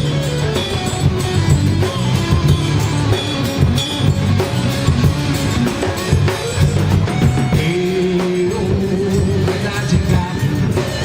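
Live band playing a song, with bass and drums keeping a steady beat under a melodic line.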